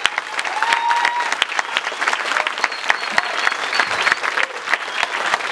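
Audience applauding: dense, irregular clapping throughout, with a few voices calling out over it.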